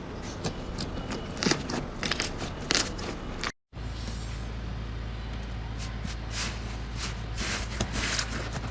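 Slime being squeezed and pressed by hand: a run of small clicks and crackles. It breaks off briefly about three and a half seconds in, then goes on over a low steady hum.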